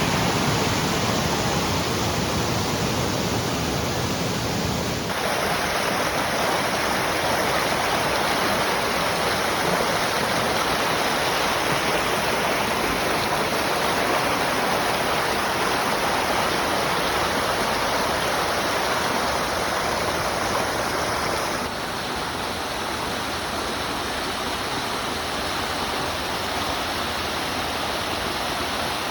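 Steady rush of running water, like a stream or small waterfall. Its tone changes abruptly about five seconds in and again about two-thirds of the way through.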